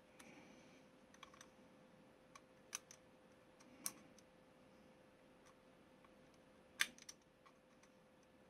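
Quiet handling of plastic model-kit parts: a handful of small, sharp plastic clicks and taps spread over several seconds, the strongest about seven seconds in, over a faint steady hum.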